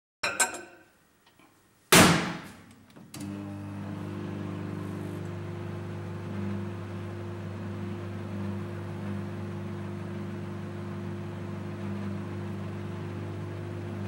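Microwave oven running with a steady low mains hum that starts about three seconds in, after a few clicks and a loud knock about two seconds in.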